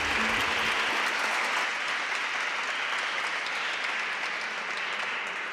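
Audience applauding, a steady round of clapping that eases off slightly near the end.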